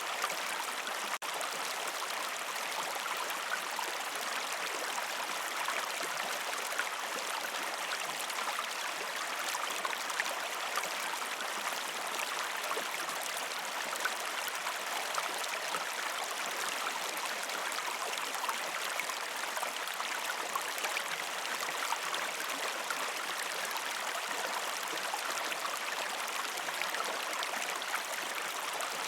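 Gentle river stream flowing over rocks: a steady, even rush of water with fine splashing and gurgling, with a momentary drop-out about a second in.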